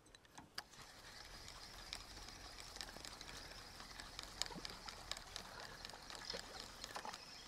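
Feeder fishing reel being wound in, a faint steady whir with many small clicks after a few sharp clicks at the start, as the marker lead is retrieved between depth-sounding casts.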